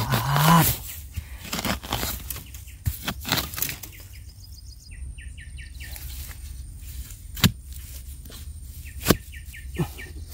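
Rustling and scraping of damp soil and dry bamboo litter as earth is cleared from around a bamboo shoot. A small bird calls in quick series of short high chirps, twice, and two sharp clicks fall between the call series.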